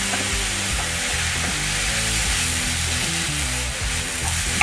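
Background instrumental music over a steady sizzle from milk cooking into hot ghee-fried desiccated coconut in a kadhai, with a wooden spatula stirring the mixture.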